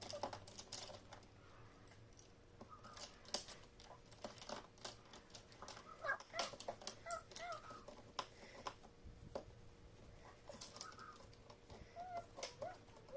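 Faint clucking calls of domestic fowl, short separate notes scattered throughout, with many sharp clicks and taps in between.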